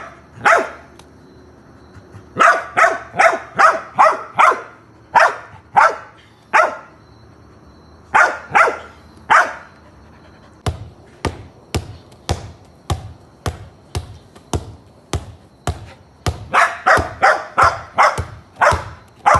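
A dog barking in quick runs of several barks separated by pauses. Through the middle stretch the sounds turn into shorter, sharper knocks, about two a second.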